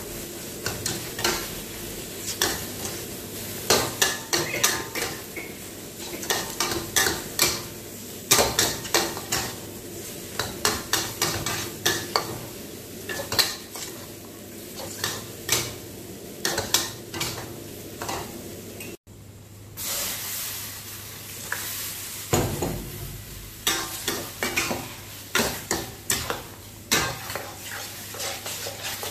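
A metal wok spatula and ladle scraping and clanking against a steel wok in quick irregular strokes, while noodles sizzle and fry underneath. The sound drops out for a moment about two-thirds of the way through.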